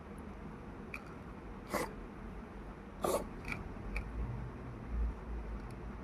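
A cat coughing twice, two short coughs a little over a second apart.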